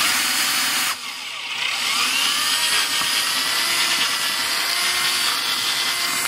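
Drill running slowly in reverse, its bit spinning against a badly stripped screw head, so the screw barely turns. The motor speeds up with a rising whine, eases off about a second in, then speeds up again and runs steadily.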